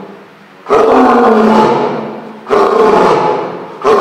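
Male lion roaring in a bout: three loud roars, each starting strong and fading away, the next one starting almost as the last dies down.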